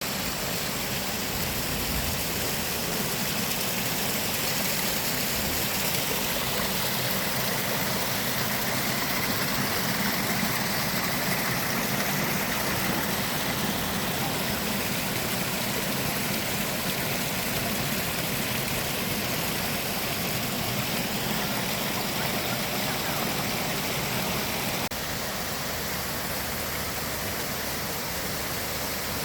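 Waterfall rushing: a steady roar of falling water, a little quieter for the last few seconds.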